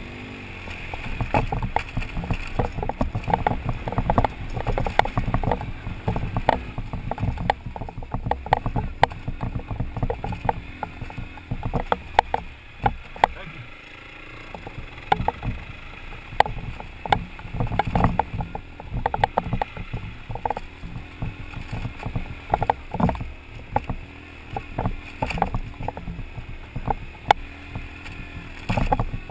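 Adventure motorcycle engine running at low speed up a rough dirt trail, with frequent irregular knocks and rattles as the bike and helmet camera jolt over ruts and rocks.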